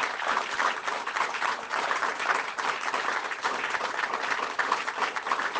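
Applause from a small crowd: many people clapping steadily in response to a pledge to ban military-style assault rifles.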